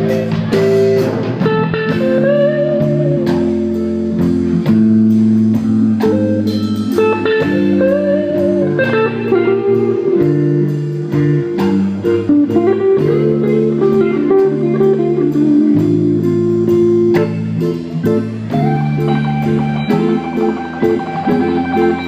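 Live blues band: an electric guitar solo with several bent notes over a steady drum beat, ending on a long held high note in the last few seconds.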